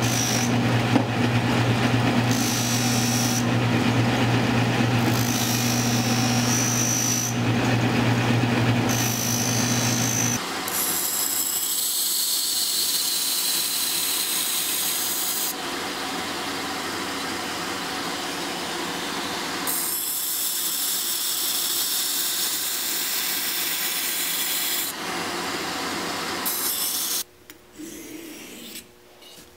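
A bench buffer's motor humming steadily while a steel knife blade is polished on its cloth wheel, a high whine coming and going three times. About ten seconds in it changes to the hiss of a belt grinder's abrasive belt sharpening the blade's edge, in several short clips, and near the end to the quieter scrape of the blade stroked across a sharpening stone.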